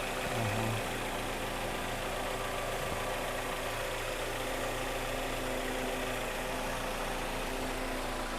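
Kia Cerato's freshly rebuilt G4KD 2.0-litre inline-four idling steadily, heard from beneath the car, its exhaust running without a catalytic converter.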